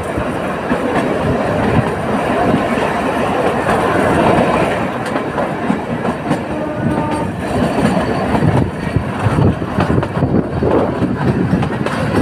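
Loud, continuous rumble and clatter of something rolling, with a dense run of small knocks throughout.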